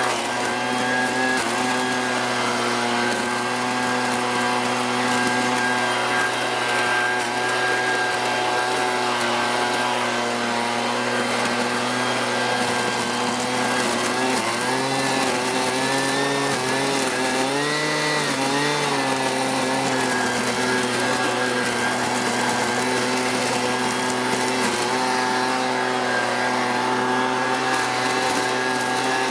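Husqvarna 125BV blower-vacuum's small two-stroke engine running steadily at full throttle in vacuum mode, sucking fallen leaves up its intake tube. The pitch wavers up and down for a few seconds in the middle, then settles again.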